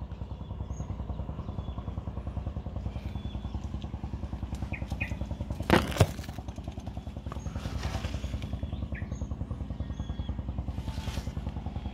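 A small engine idling steadily, with an even, rapid pulse. Two sharp knocks come close together about six seconds in.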